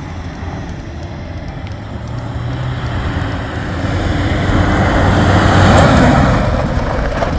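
A 4x4 pickup driving along a dirt track, its engine and tyres on loose dirt growing louder, peaking about six seconds in and then easing off, as it runs through a braking drill.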